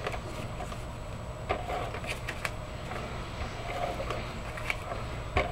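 Scotch ATG tape gun running adhesive along the edge of card stock, a light mechanical whirr with a few small clicks and paper handling.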